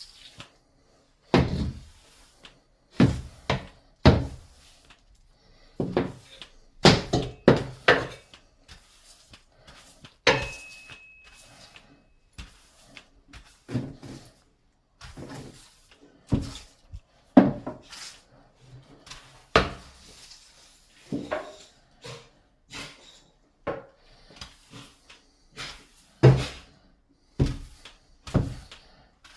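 Broom being worked around a shower pod: irregular knocks, thuds and scraping clatter, with a brief high squeak about ten seconds in.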